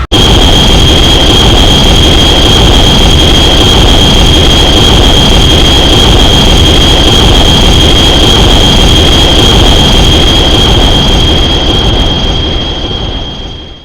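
Homemade Godzilla sound effect: a long, very loud, steady, distorted rush of noise with a piercing high whine running through it, fading out over the last two seconds.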